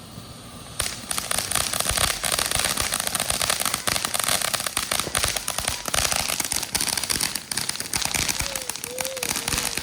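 A consumer firework going off: about a second in, a sudden burst of dense, rapid crackling that keeps going without a break.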